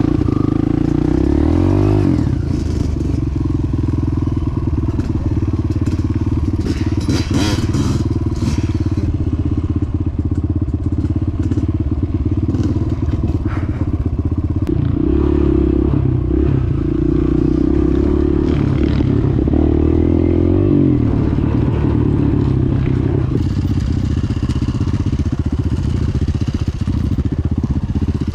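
Dirt bike engine running close to the microphone, its revs rising and falling several times as the bike is ridden off-road.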